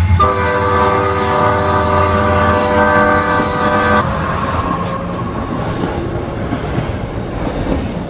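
Train horn held for about four seconds and cutting off suddenly, over the rumble of a fast train running through a station without stopping. The running rumble carries on after the horn.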